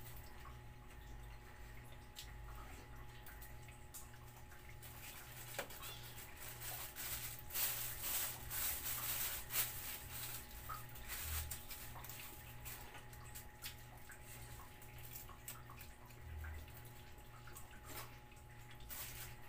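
A dog and cats eating wet food off plates: faint wet chewing and licking with scattered small clicks, busiest from about seven to ten seconds in, over a steady low hum.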